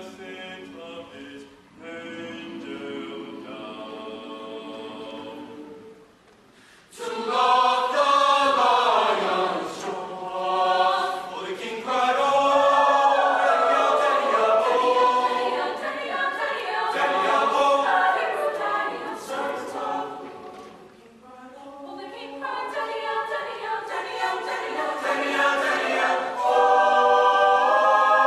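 Choir singing a cappella as background music, soft at first, then swelling much louder about seven seconds in after a brief pause, with a short dip about two-thirds through before building again.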